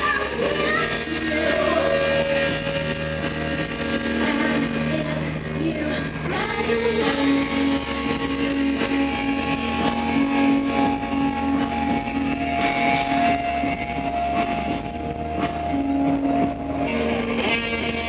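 Live rock band playing, with electric guitar to the fore and a woman singing over it in the first several seconds.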